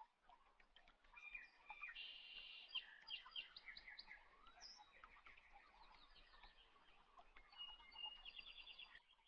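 Faint birdsong: small birds chirping and trilling in quick repeated notes, with no other sound above a low hiss.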